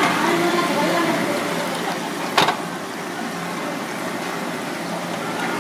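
Tank water splashing and streaming as a live king crab is lifted out of a seafood tank, over a steady rush of running water, with one sharp knock about two and a half seconds in.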